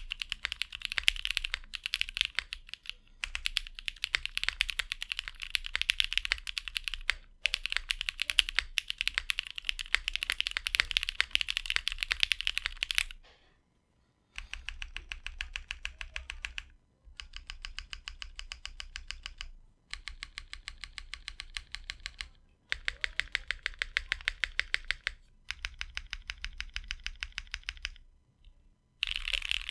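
Typing on a 60% custom keyboard with lubed and filmed Cherry MX Black Hyperglide linear switches on Kailh long-pole stems, in an aluminium plate with GMK ABS keycaps. It is fast, dense typing for about the first 13 seconds. After a brief pause come quieter runs of evenly spaced keystrokes in short blocks with gaps between them.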